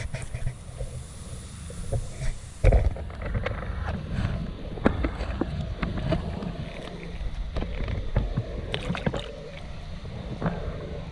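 Water sloshing and splashing in the shallows as a landed peacock bass is held in the water by a lip gripper, with wind buffeting the microphone and scattered handling knocks. One loud thump comes about a quarter of the way in.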